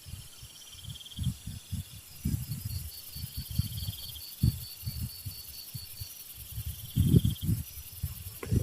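Insects trilling in short pulsed runs over a steady high insect hiss, with repeated irregular low thumps throughout that grow stronger near the end.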